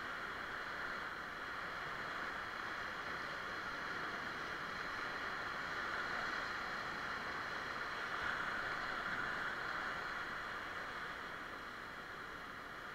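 River whitewater rushing steadily around a raft: a continuous hiss of moving water that swells slightly around the middle and eases off a little near the end.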